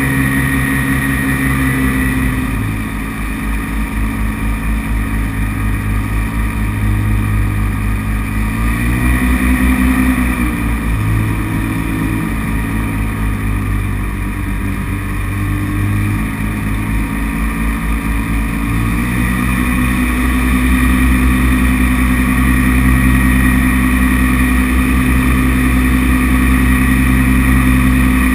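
Paramotor's two-stroke engine and propeller running, heard from on board. The engine note shifts up and down several times with the throttle, then holds steadier and a little louder from about two-thirds of the way through.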